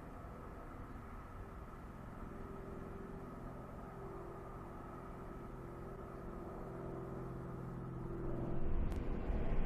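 Distant steam-hauled passenger train running along the line, heard as a steady low rumble with a faint hum. Near the end a louder rush of wind takes over.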